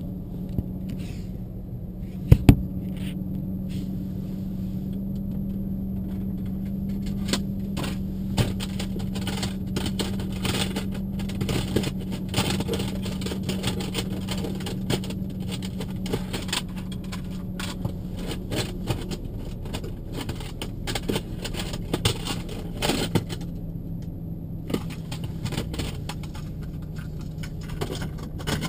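Interior of a parked car with the engine running: a steady hum that drops slightly in pitch about two-thirds of the way through, with scattered clicks and light rattles and one sharp click about two seconds in.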